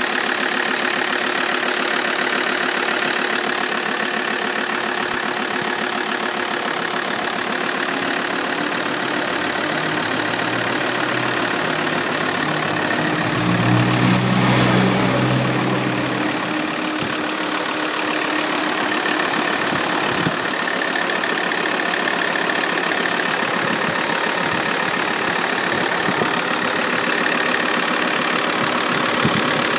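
Alfa Romeo 159's 2.4 JTDm five-cylinder diesel idling after a cold start, with a rapid, continuous squeak running over the engine note. The engine is revved briefly about halfway through.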